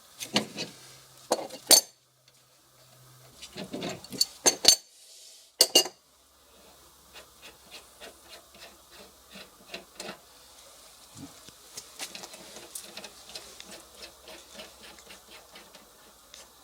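Metal clinking and clattering, with several sharp clanks in the first few seconds, then a long run of small, fairly even ticks and clicks.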